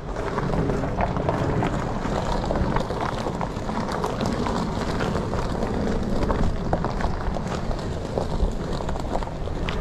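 AITO M9 SUV moving slowly, a steady low rumble of tyre and road noise with faint scattered ticks throughout.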